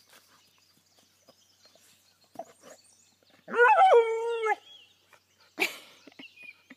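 A Vizsla gives one drawn-out vocal 'speaking' call during play, about a second long, sliding up and then down in pitch. About a second later comes a short breathy noise.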